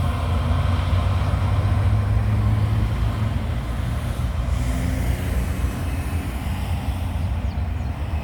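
Loaded grain freight train rolling past with a steady low rumble that eases slightly near the end.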